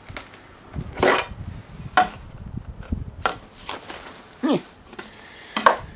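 Scattered knocks and clatter of things being handled, about five sharp knocks spaced roughly a second apart, the loudest about a second in, with a short falling squeak or scrape about four and a half seconds in.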